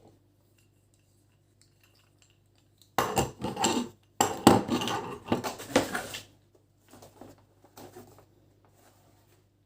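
Hard metal and plastic parts of a ring light and its stand clattering and clicking as they are handled and fitted together: a burst of about three seconds after a quiet start, followed by faint handling sounds.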